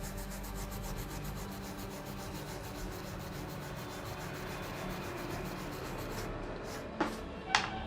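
Brush scrubbing a phone motherboard while it is washed, a steady scratchy rubbing. Two sharp clicks near the end.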